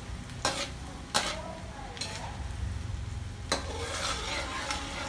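Chopped garlic sizzling in hot oil in a stainless steel wok, stirred with a spatula that knocks against the pan about four times, loudest a little over a second in.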